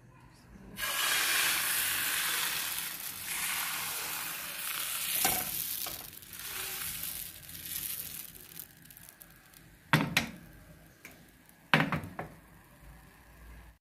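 Crêpe batter sizzling as it hits a hot nonstick pan, loud at first and dying down as the batter spreads and sets. Two sharp knocks sound near the end.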